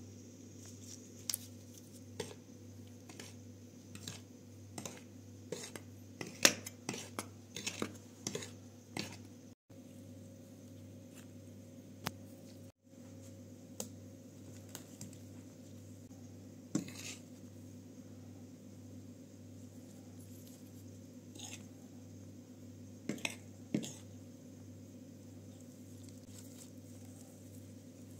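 Light clicks and taps of a ceramic plate and gloved hands handling seasoned flour and a raw fish fillet, over a steady low hum. The taps come thickly in the first nine seconds, then only a few, with a small cluster about 23 seconds in.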